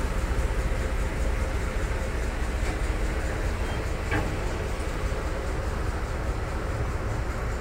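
Steady low rumble and noise of a ferry boat's engine running.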